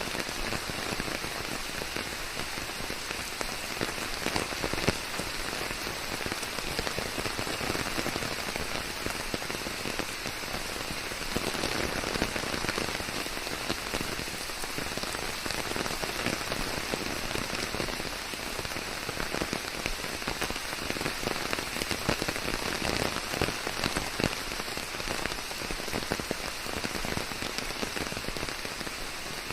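Steady rain falling on a surface, an even hiss dotted with many separate drop hits.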